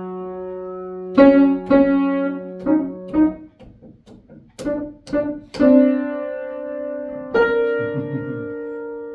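Background piano music: slow struck notes and chords, each held and slowly fading.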